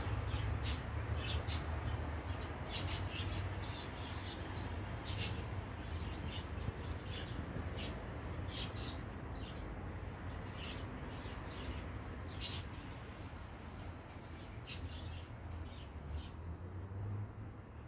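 Steady low purring from tabby cats curled up together, close to the microphone, with short high bird chirps every second or two.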